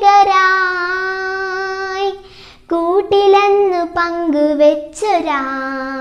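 A young girl singing a Malayalam poem unaccompanied, holding long notes. She breaks for a breath about two seconds in, sings a short phrase, then ends on a long held note that drops in pitch about five seconds in.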